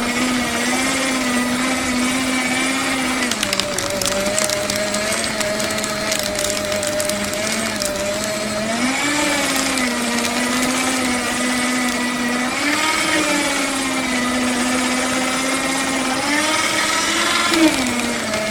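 Electric paper shredder running and cutting paper: a steady motor hum that sags in pitch when paper loads it and climbs back several times, with a crackle of paper being cut through the first half.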